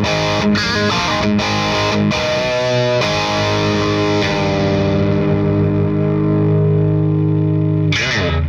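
Overdriven electric guitar, a Gibson Les Paul Tribute with P90 pickups through an 18-watt Satellite Neutron amp boosted by an Airis Effects NoKnobsense. It plays a quick riff of picked notes for about three seconds, then lets a chord ring out. Near the end the chord slides down and stops abruptly.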